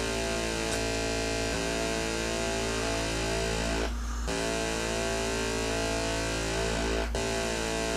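Modular synthesizer drone from a sawtooth phase-shifter module whose cut point is being swept back and forth. It makes a thick, buzzy tone whose harmonics shift and swirl in a phasing pattern. About halfway through, and again briefly near the end, the buzz thins to a smoother tone.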